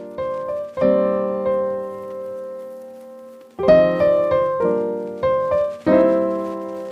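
Background music: piano chords struck one after another and left to ring and fade.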